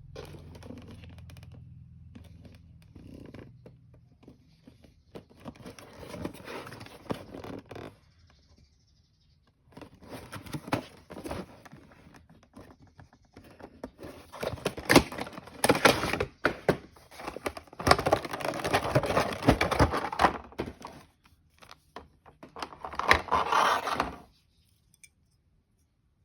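Packaging of a 1:400 diecast model airliner being opened and handled: cardboard and plastic rustling and scraping in bursts, with frequent sharp clicks and taps. The loudest stretch of handling comes in the second half, and it stops a couple of seconds before the end.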